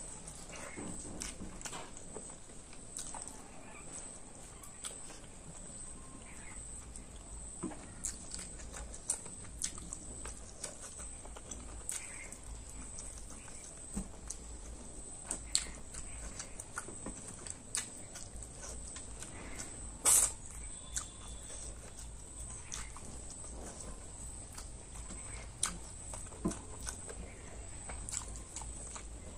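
A person eating: chewing and mouth clicks scattered irregularly, with one louder brief noise about two-thirds of the way in.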